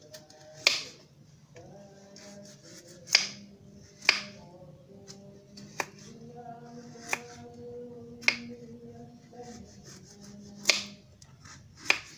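Kitchen knife cutting the peel off a butternut squash over a wooden cutting board, a sharp crisp click with each stroke, about eight at irregular intervals.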